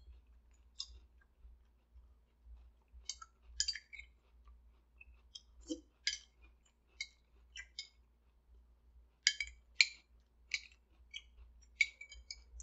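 Metal spoon clinking and scraping against a ceramic cereal bowl while stirring and scooping cereal in milk: light irregular clicks, with a few sharper clinks in the second half.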